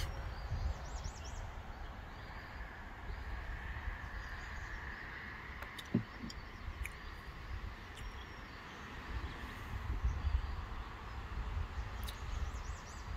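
Outdoor ambience: a low, uneven rumble of wind on the microphone with a few faint bird chirps, and a single knock about six seconds in.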